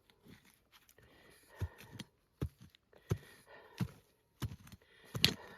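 A digging tool striking into hard, rocky clay soil: a run of about seven separate thuds, irregularly spaced, the loudest near the end.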